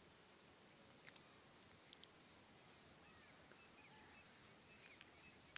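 Near silence: faint background hiss with a few soft clicks and some faint, short high chirps.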